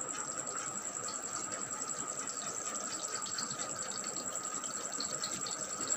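Onion slices frying in shallow oil in an aluminium kadhai, a low, steady sizzle.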